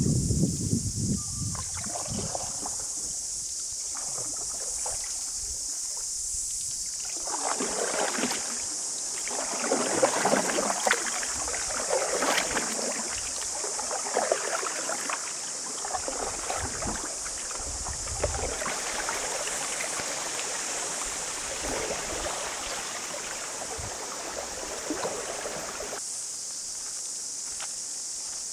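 Canoe paddles dipping and pulling through calm river water in irregular splashing strokes, over a steady high-pitched hiss. Near the end the splashing stops and only the hiss remains.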